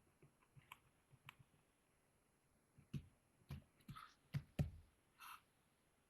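Faint taps and knocks inside a wooden kestrel nest box, as of birds moving and scrabbling: a few light ticks, then a quick run of five or six louder knocks about halfway through, and a short rasping sound near the end.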